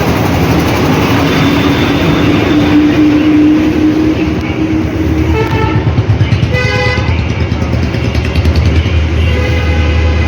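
Loud road traffic with vehicle horns honking: short horn blasts about halfway through and again a little later, and another starting near the end, over a steady engine and traffic noise with a slowly rising engine tone early on.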